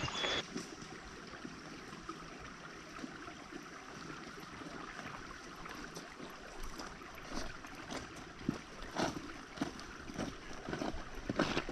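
Steady rushing of a brook running beside the trail, with irregular footsteps on the path that become more frequent and louder in the second half.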